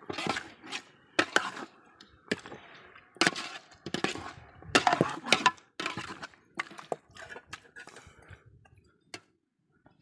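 A metal ladle scraping and clanking against a large metal cooking pot as raw chicken pieces and fried onions are stirred, in irregular knocks that thin out near the end.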